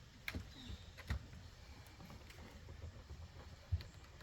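A few faint, scattered clicks and knocks of tools being handled, three of them a little louder than the rest.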